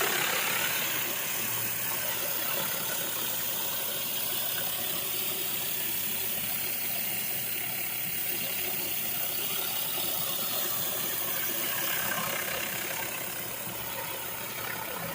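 Commercial pressure washer's engine running steadily, with the even hiss of water spraying from a surface cleaner working over concrete.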